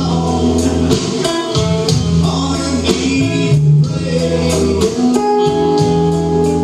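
A live band playing: guitar over a steady bass line and a beat, with a voice singing.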